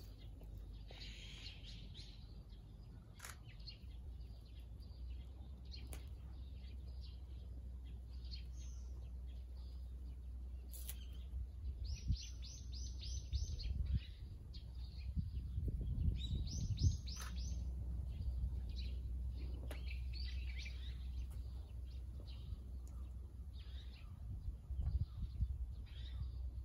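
Small birds chirping, with two quick runs of repeated high notes, one about twelve seconds in and another about sixteen seconds in. A steady low rumble lies underneath.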